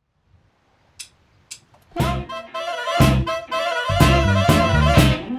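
Two sharp clicks, then band music kicks in about two seconds in: a punk-tinged liscio dance-hall band with drums and wind instruments playing to a strong, regular beat.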